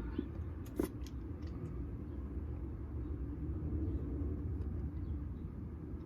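Steady low background rumble, with one short sharp click about a second in.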